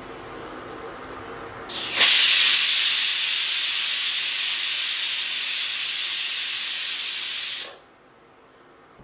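Stainless-steel pressure cooker whistling: the weight lifts and steam jets out in a loud, steady hiss for about six seconds, then stops abruptly. This is the cooker releasing built-up pressure during high-heat cooking.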